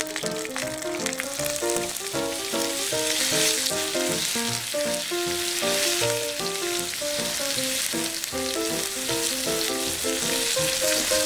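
Sliced leeks and pork belly slices sizzling as they fry in oil in a pan, a steady hiss throughout. Background music of quick melodic notes plays over it.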